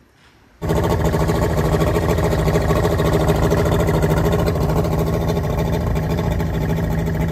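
Yamaha 200 hp HPDI two-stroke V6 outboard, cowling off, running steadily. It comes in abruptly under a second in and holds an even pitch.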